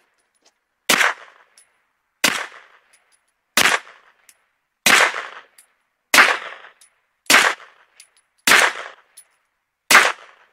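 Suppressed 9mm Taurus G3 Tactical pistol, fitted with a Rugged Obsidian 45 suppressor, fired in slow, steady single shots. Eight shots come about one every 1.3 seconds.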